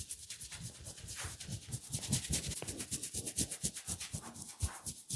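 Fingers scratching and rubbing briskly through hair and scalp in a head massage, a fast run of short scratchy strokes, several a second, with a few soft thumps beneath.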